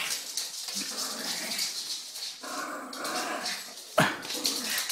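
Shih Tzu growling in play, a rough low grumble, with a short sharp sound about four seconds in.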